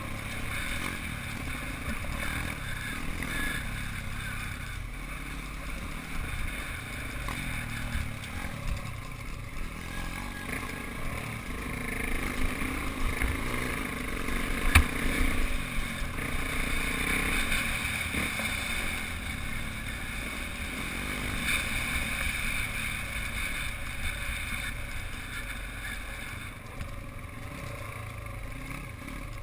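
Small off-road motorbike engine running along a dirt trail, its sound swelling and easing as the throttle changes. A single sharp knock about halfway through is the loudest moment.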